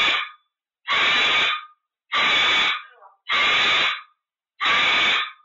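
A pet parrot giving loud, evenly repeated screeching calls, each just under a second long, about one every 1.2 seconds.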